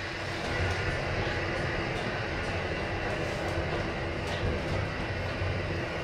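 Stannah passenger lift car travelling down between floors, heard from inside the car: a steady running hum and rumble with a faint held tone.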